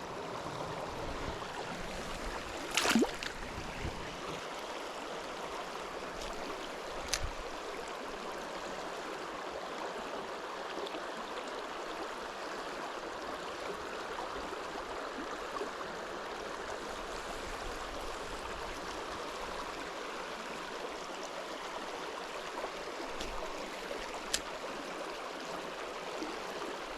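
Steady rush of flowing river water. A brief louder noise comes about three seconds in, and sharp clicks come at about seven and twenty-four seconds.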